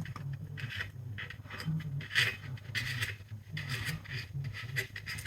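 Oil drain plug being fitted back into an air compressor's crankcase by hand: irregular scraping and rubbing with small clicks.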